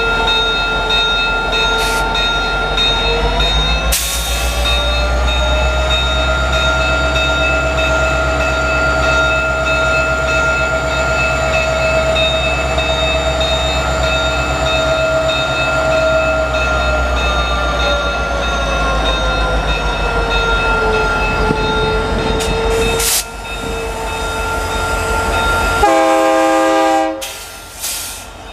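EMD SD60 diesel-electric locomotives passing close by with the 16-cylinder engine and turbocharger whining; the engine note rises a few seconds in and falls back around twenty seconds in. A few sharp knocks sound, and a short multi-note horn blast comes near the end.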